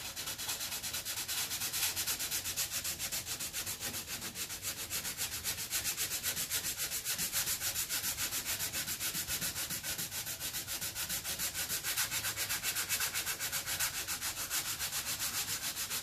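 120-grit sandpaper on a stiff sponge block rasping over polyester glazing putty on a car fender, pushed by hand in quick, even back-and-forth strokes, several a second. This is the block-sanding stage that shapes the filler down over a dent repair.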